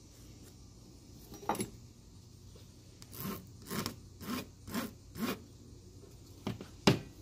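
Hand scraping with a metal tool on hardened melted plastic on a dog collar: one short rasp, then five even strokes about two a second, then two sharper scrapes near the end, the last the loudest.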